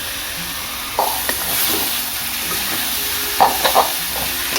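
An onion, ginger, garlic and green chilli masala sizzling in hot oil in a pan as tomatoes are added to be sautéed. The sizzle grows louder about a second in, and a spoon stirs and scrapes the pan, knocking a few times near the end.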